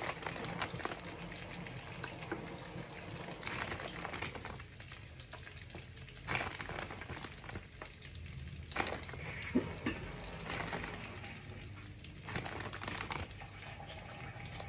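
Floured whitebait frying in shallow oil in a pan: a steady sizzle full of small crackles, with a few louder crackles as more fish are laid into the hot oil.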